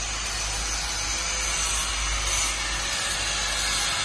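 Box beam roll forming line running: a steady, even hiss with a low hum beneath.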